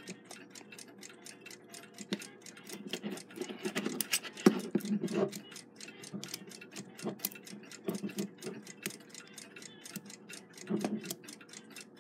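A clock ticking steadily, about five ticks a second, under louder irregular metallic clicks and clatter as the alarm mainspring of a Westclox Big Ben movement is let down by hand through a letdown adapter with the click held off. The spring lets down a little fast but stays under control.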